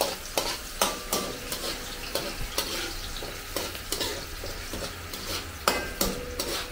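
Garlic and onion sizzling as they sauté in a stainless steel wok, stirred with a metal ladle that scrapes and clinks against the pan several times.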